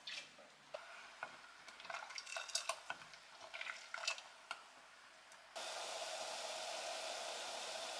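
Wooden spoon stirring chili-sugar syrup in an enamel saucepan, with scattered clicks and scrapes against the pot. About halfway through, a steady hiss of the syrup boiling starts abruptly and takes over.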